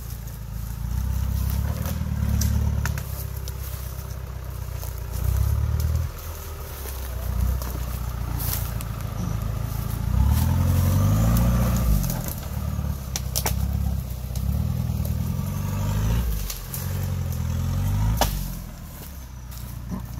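Engine of a mud-covered, Jeep-bodied off-road 4x4 revving in repeated bursts as it crawls over roots and fallen branches, rising and falling several times. A few sharp cracks are heard between the revs.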